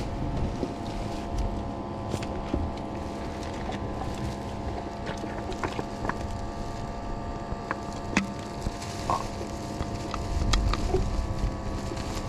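A steady hum with several held tones, under scattered light clicks and crinkles of plastic bottles and a plastic bag being handled.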